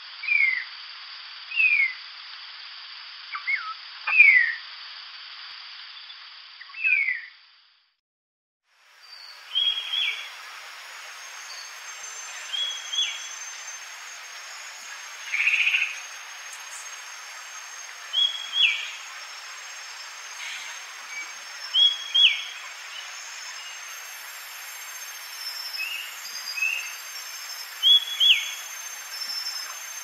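Narrow-tailed starling calling in short falling whistles every second or so. After a brief break, Stuhlmann's starling gives short high calls that drop sharply at the end, singly or in pairs every few seconds, over a steady background hiss.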